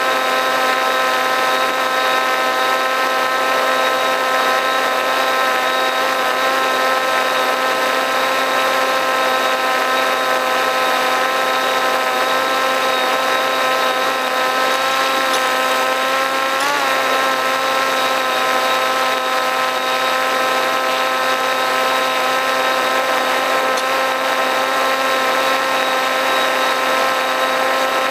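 RC model plane's motor and propeller running at a steady cruise throttle, heard from the camera on board as a loud, even drone. The pitch wobbles briefly about two-thirds of the way through.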